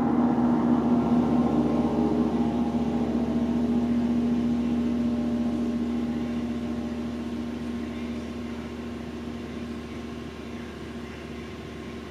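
A wind ensemble's last chord ringing on and slowly dying away, its held tones fading out over about eight seconds until only a faint steady room hum is left.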